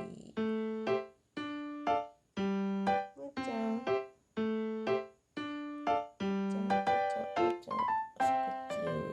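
Background music: a light piano or electric-piano tune played in short, evenly spaced phrases.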